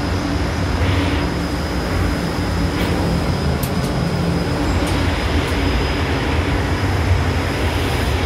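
Steady low rumble and hum of a train platform, heard through the open elevator doors, with a constant high-pitched whine over it. A few light clicks come in the middle as elevator car buttons are pressed.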